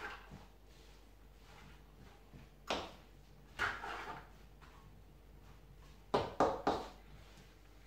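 Wooden spatula scraping and knocking against a wok as the fried rice mixture is stirred: a few separate strokes, with a quick run of three or four near the end.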